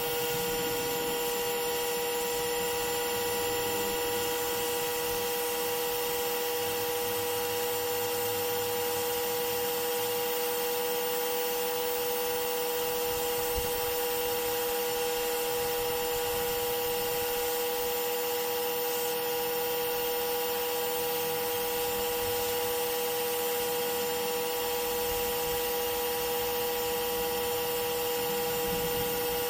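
Pressure washer running steadily: a constant machine whine over the hiss of the spray.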